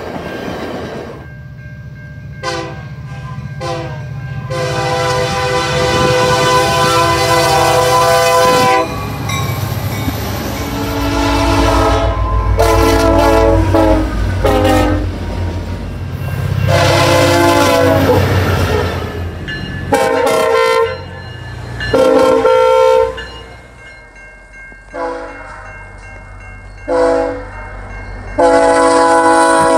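Locomotive multi-chime air horn playing a horn show: a run of short toots and long held blasts of a chord, sounded again and again, over the low rumble of the train.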